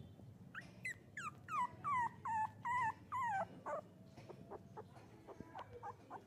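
Very young puppy crying: a quick run of high-pitched whimpering cries, each dropping in pitch, then fainter short squeaks from about four seconds in.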